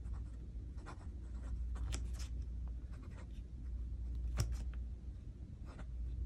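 Fountain pen nib scratching across notebook paper in short strokes as a left-handed writer writes lines of text, with one sharper tick about four seconds in.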